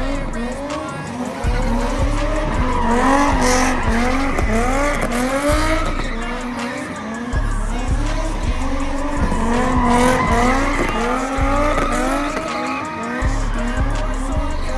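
Cars drifting: engines revving up and down in quick, repeated swells, with tyres squealing. Music with a heavy bass beat plays underneath.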